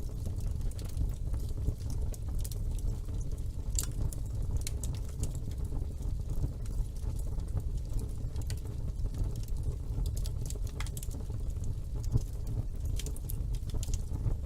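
Wood fire burning in a fireplace: a steady low rumble of flame with scattered sharp crackles and pops from the burning logs.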